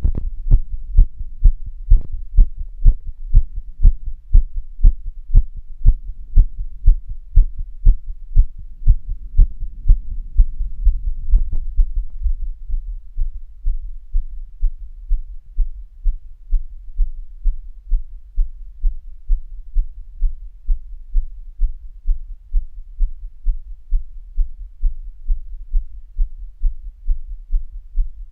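A person's heartbeat: a steady, regular train of low thumps. The beats become fainter about twelve seconds in, and a soft noise runs under them for a few seconds just before that.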